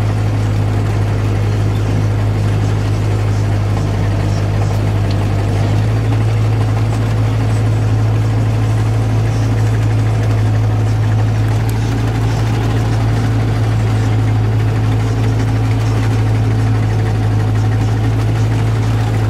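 New Holland T7030 tractor's six-cylinder diesel engine running steadily under load, heard from inside the cab as a constant low drone. Its pitch steps up slightly about six seconds in.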